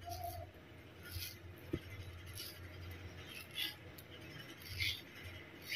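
Kitchen knife scoring a peeled mango held in the hand: faint, short scraping strokes about once a second, with a small click about four seconds in.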